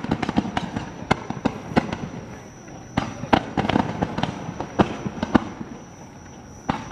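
Aerial fireworks bursting: a run of sharp bangs and crackles in clusters, with the loudest reports about three and five seconds in and quieter gaps between the salvos.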